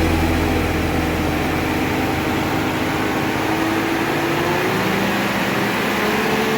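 A vehicle engine running steadily, with a faint whine that rises slowly in pitch.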